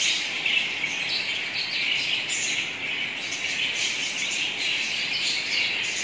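A flock of budgerigars chattering together: a dense, continuous mass of overlapping chirps and warbles with no pause.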